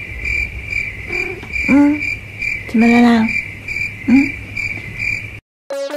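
A high, insect-like chirping that pulses about three times a second, with a few short, low vocal calls over it, the strongest about two and three seconds in. The chirping cuts off suddenly about five seconds in, and music with piano-like notes starts just before the end.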